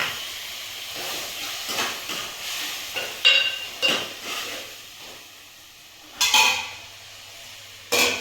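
Food sizzling in a pan over a steady hiss, with a spoon stirring and scraping it: about six separate scrapes, the loudest near the middle and at the end.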